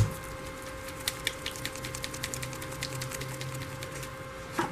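Light, rapid clicking and rattling as acrylic flesh-tone paint is mixed. The clicks come thickest in the first couple of seconds, then thin out.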